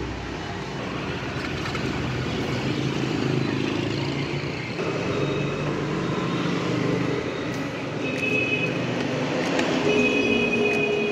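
Street traffic noise, a steady rumble that slowly grows louder, with a high squeal that comes and goes in the last few seconds.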